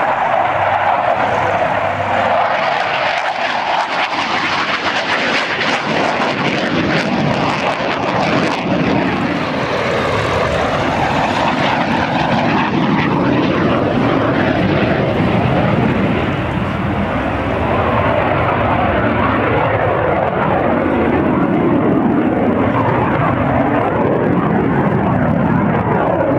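Hawker Hunter jet with a Rolls-Royce Avon turbojet flying a display overhead. Its jet noise is loud and unbroken, and the tone slowly sweeps up and down as the aircraft moves across the sky.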